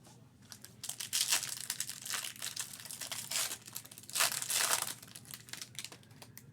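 Foil trading-card pack wrapper crinkling as it is handled and torn open, in irregular bursts, loudest about a second in and again about four seconds in.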